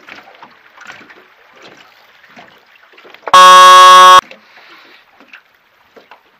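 A race signal horn gives one loud, steady blast about a second long, starting about three seconds in and cutting off sharply.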